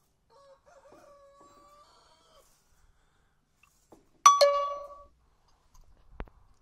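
A single sharp metallic ding about four seconds in, ringing with a clear tone and dying away in under a second, like a metal pipe being struck. Before it comes a faint steady call of about two seconds, and a dull thump follows near the end.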